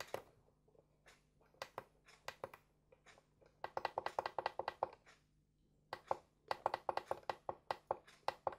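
Weishi timegrapher's menu buttons pressed repeatedly to scroll a setting. The result is faint runs of quick clicks with short pauses between the runs.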